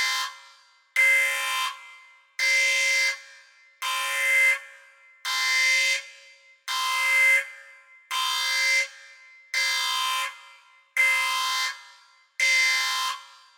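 Sci-fi spaceship alarm sound effect: a buzzing klaxon blast of steady pitch, repeating about once every one and a half seconds, each blast fading out after it cuts off.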